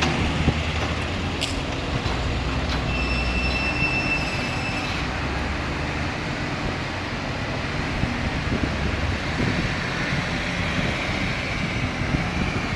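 Kobelco 220 excavator's diesel engine running steadily while working, with a sharp click about a second and a half in and a thin high-pitched metallic squeal from about three to five seconds in.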